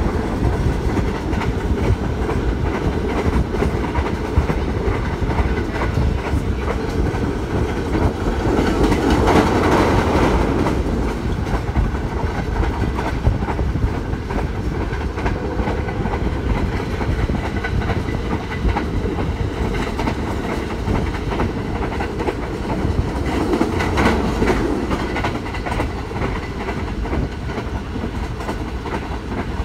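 Passenger train running at speed, heard from inside the carriage at the window: a steady rumble with the rhythmic clickety-clack of the wheels over the rail joints, swelling louder twice.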